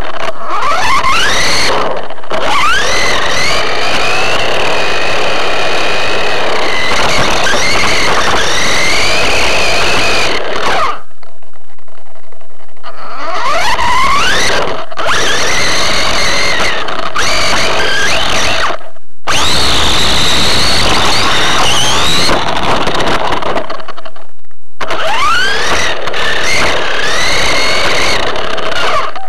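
Electric RC car's motor and gears whining loudly, the pitch sweeping up as it accelerates and dropping as it slows, over and over, with rattling road noise from the chassis. The sound drops out almost completely three times when the car comes off the throttle.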